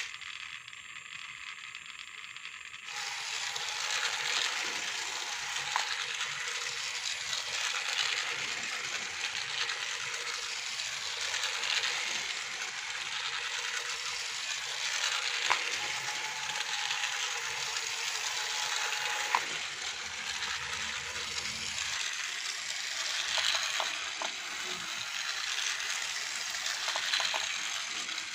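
Small electric toy-vehicle motors and plastic gears running with a steady mechanical rattle, broken by a few sharp clicks.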